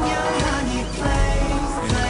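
Pop music with a strong bass beat and layered pitched parts, from a live concert performance.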